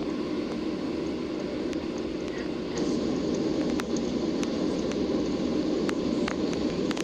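Steady rushing noise of a Boeing 737-800 airliner, engines and airflow heard from inside the cabin, with scattered faint clicks over it.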